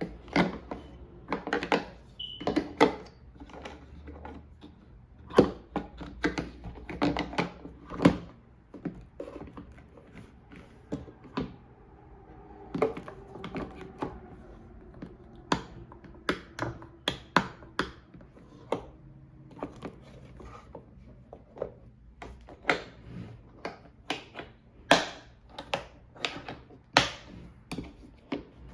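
Irregular clicks, taps and knocks of hard plastic parts and packaging being handled.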